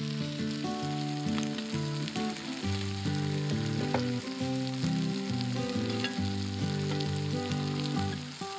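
Background music with a melody of sustained notes, over sliced onions and meat sizzling in a cast-iron pot.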